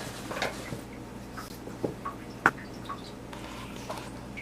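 Water splashing and dripping from a vintage KitchenAid KDS-18 dishwasher leaking out the bottom of its open door, over a steady low hum, with scattered small ticks and one sharper click about halfway through.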